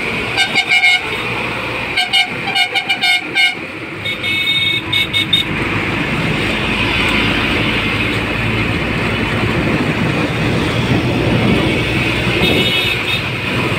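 Vehicle horns honking in traffic: a string of short toots in the first few seconds, a higher-pitched horn around four to five seconds in, and another brief honk near the end. Between them runs the steady noise of engines and tyres heard through an open vehicle window.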